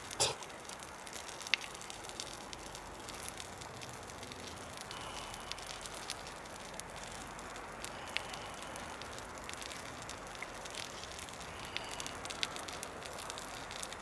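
Small open fire crackling: scattered soft clicks and pops over a faint steady hiss.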